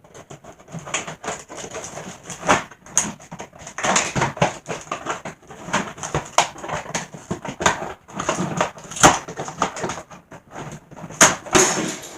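Hard plastic packaging and small plastic toy-robot parts being handled: irregular crinkling, rustling and clicking, with no steady rhythm.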